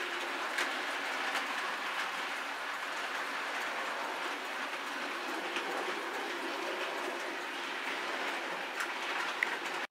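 Model train running along the track: a steady rolling rattle of wheels on rail, with a few faint clicks.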